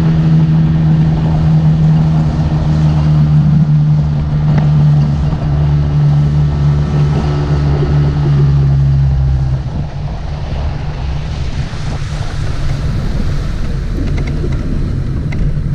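Motorboat engine running at a steady pitch, then throttled back about two-thirds of the way through, leaving the rush of water and wind against the hull.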